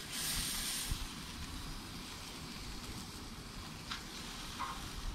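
Food sizzling on a hot grill: a steady faint hiss, brighter in the first second, with a few light crackles later on.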